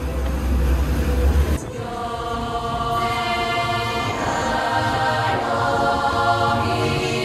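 Choral, chant-like singing comes in suddenly about a second and a half in and fills the rest. Before that there is a low rumble with a noisy wash, from the boat's four Mercury outboards running and the wake.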